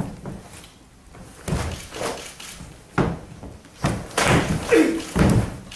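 Karate blocks and strikes landing on arms and bodies in a two-person Uechi-ryu bunkai: a string of sharp, irregular slaps and thuds, most of them crowded together near the end. A short shout, a kiai, rings out about five seconds in.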